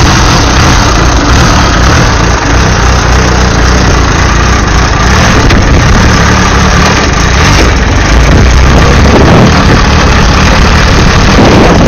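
Vintage motorcycle engine starting up and then running steadily as the bike rides off.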